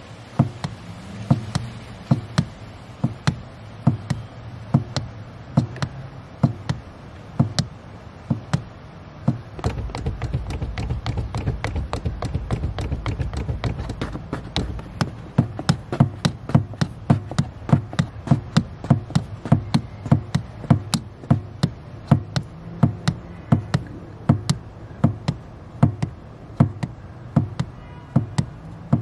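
A car's accelerator pedal pumped repeatedly by a slippered foot, knocking about two to three times a second at an even rhythm. A low rumble swells for a few seconds about ten seconds in.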